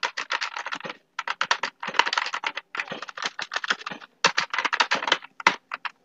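Typing on a computer keyboard: rapid key clicks in quick bursts, with short pauses between words.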